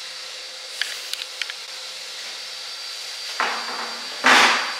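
Handling noise of a steel rear axle beam at a bench vise: a few light clicks, then two short scraping rushes near the end, the second the louder, over faint workshop hum.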